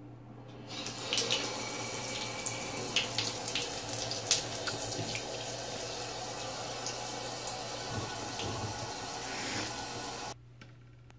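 Bathtub faucet turned on, running a thin stream of water into the tub, with a few splashy spikes early on. The flow stops abruptly near the end.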